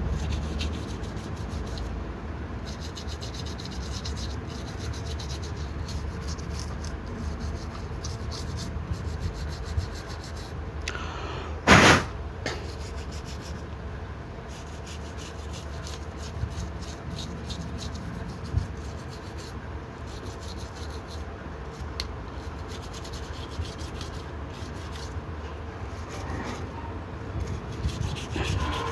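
Scratchy rubbing and scrubbing as the inside of an opened Samsung Galaxy A5 phone is cleaned of dirt. About twelve seconds in there is one short, loud burst of noise.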